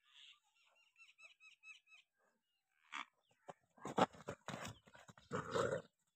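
A dog growling and snarling in loud, rough bursts while squaring off with a charging young water buffalo, beginning about three seconds in. Before that, a few faint high chirps come at about four a second.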